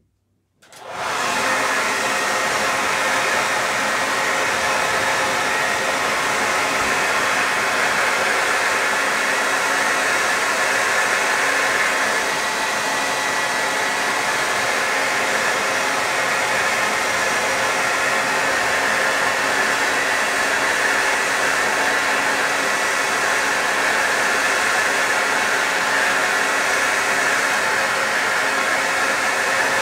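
Revlon handheld hair dryer switched on just under a second in, then blowing steadily on high: a constant loud rushing hiss with a faint steady whine in it.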